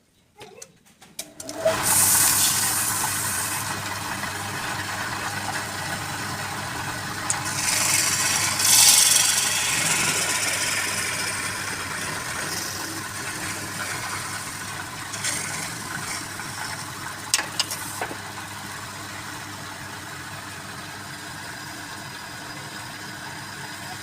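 Motor of a woodturning lathe starting about a second and a half in and running steadily with a humming tone. Two stretches of louder high hiss come over it early on and around the middle, and a few sharp clicks follow later.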